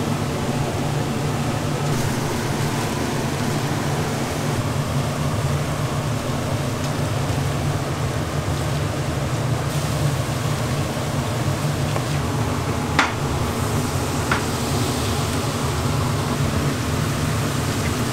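Steady low hum with an even hiss from a kitchen ventilation fan running. Two sharp clicks sound about two-thirds of the way through.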